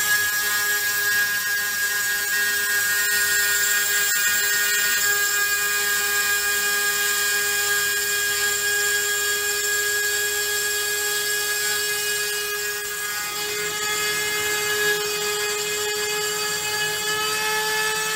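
Rotary-tool spindle of a desktop CNC milling machine running at high speed as its engraving bit cuts into a board. It makes a steady whine with several high tones, and the pitch shifts slightly about thirteen seconds in.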